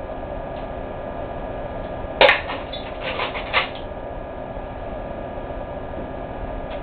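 Modified Nerf gun firing an airsoft BB: one sharp, loud snap a little over two seconds in, followed about a second later by a few lighter clicks, over a steady background hiss.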